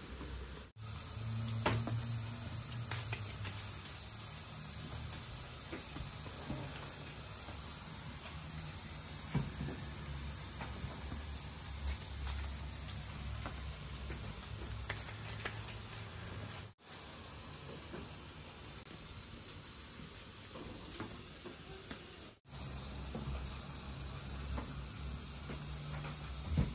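Steady high-pitched hiss of background noise with a low hum beneath and a few faint soft taps. It drops out for an instant three times.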